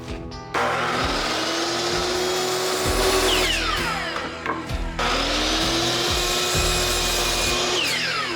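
Electric saw cutting wood boards, twice. Each time the motor starts, runs through the cut for about four seconds, then winds down with a falling whine.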